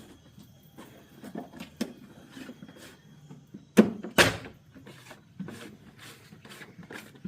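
Scattered knocks and taps of objects being handled, with two loud sharp knocks about four seconds in.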